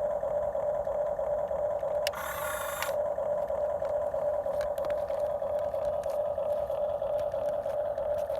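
Small electric motor of a radio-controlled model construction machine running with a steady whine, joined for under a second about two seconds in by a second, higher motor sound.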